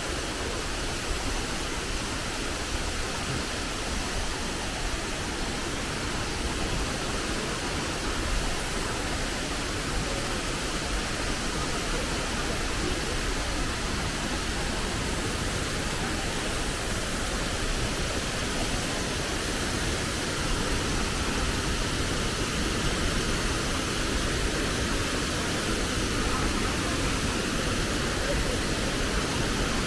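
Wachirathan Waterfall's falling water, a steady, even rushing noise.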